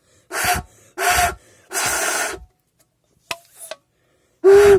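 A person blowing hard into an open soda can, three short breathy rasping blasts, then another near the end with a low hum in it. It is an attempt at imitating a Lamborghini engine that isn't working, coming out more like an animal's dying groan.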